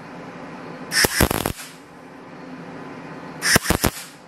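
MIG welder laying two short tack welds on a steel round-bar ring, each a crackling, sputtering arc burst of about half a second, the second some two and a half seconds after the first.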